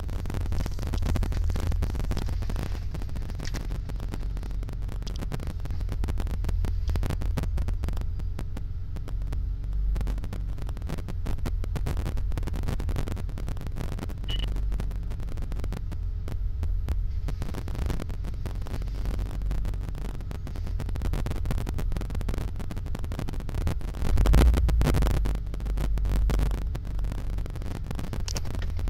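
BMW E28 535i's 3.4-litre straight-six idling roughly, its idle speed surging up and down. There is a louder stretch near the end, around where the engine stalls.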